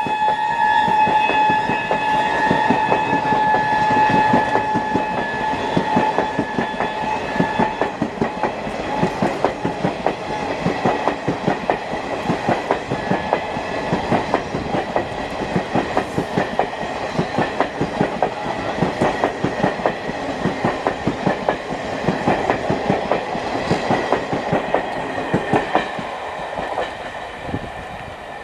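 Express passenger train passing at speed: the locomotive's horn sounds one long, steady blast that fades out about 8 seconds in, while the wheels of the LHB coaches clatter rapidly over the rail joints, the clatter dying away near the end as the train recedes.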